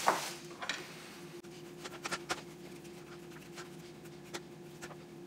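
Knife peeling a raw potato by hand: faint, scattered scrapes and clicks of the blade through the skin, over a steady low hum.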